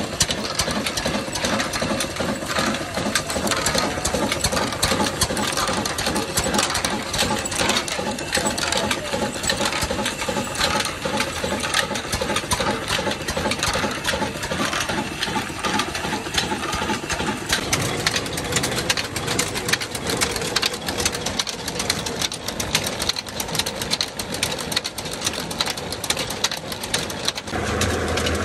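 Old single-cylinder desi diesel engine running steadily, driving belts, pulleys and gears with a rapid, continuous mechanical clatter. Near the end its deeper running sound comes to the fore.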